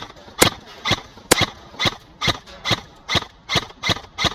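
Bolt MK18 BRSS airsoft electric rifle firing steady semi-automatic shots, about two a second, each a sharp crack with the clack of its recoil shock system.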